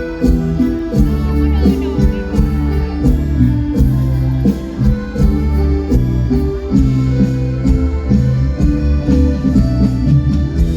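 Mor lam band music playing loudly, with a steady beat and heavy bass.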